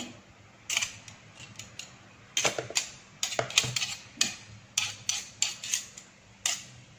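Metal spoon tapping and scraping against the wire beaters of a hand mixer to clear off thick ice cream mix, giving a string of short, irregular metallic clinks.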